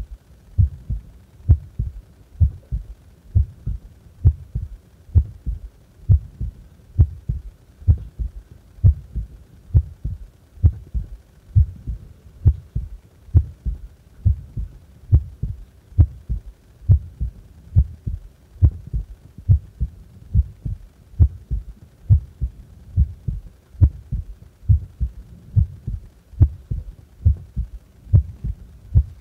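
Heart beating at rest: a slow, even rhythm of about one beat a second, each beat a low double thump (lub-dub).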